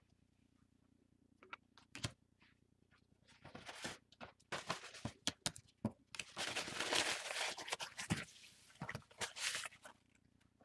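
Paper towel being wiped and rubbed across a hard craft board, with light clicks and taps of a plastic card. Only faint taps at first; the rubbing and scraping begins a few seconds in and is loudest just past the middle.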